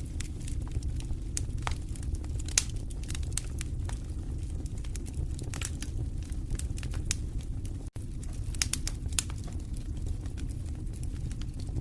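Wood fire in a fireplace crackling, with irregular sharp pops and snaps over a steady low rumble of the flames. A split-second dropout comes about eight seconds in.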